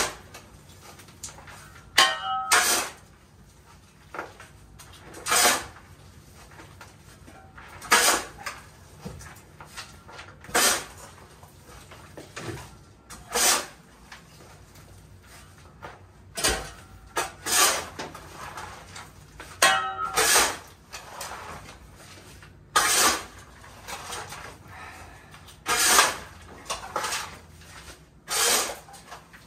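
Hand digging tool chopping into packed soil and rock, a sharp strike with scraping every two or three seconds; twice a stroke rings briefly, as metal does on stone.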